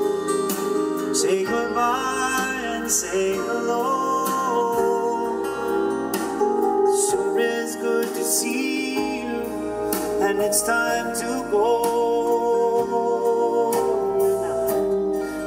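A song with a lead singing voice and instrumental accompaniment, played from a CD as a test track on the car's tuned audio system.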